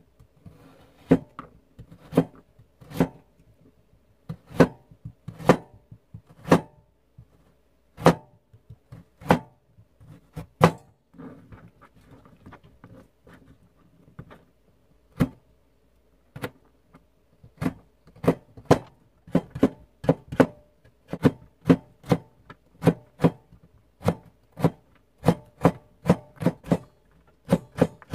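Kitchen knife chopping a carrot on a plastic cutting board: single cuts about once a second at first, then after a short pause a quicker, even chopping of about two strokes a second as the carrot is diced.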